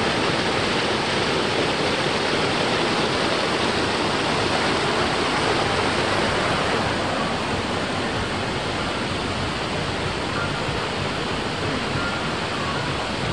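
Waterfall rushing below: a steady, even noise of falling water that eases slightly toward the end.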